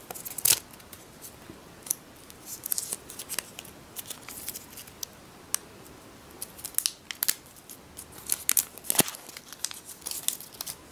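Clear protective plastic film being peeled and pulled off a new smartwatch and its band, in irregular crinkles and small tearing crackles, with one sharper snap about nine seconds in.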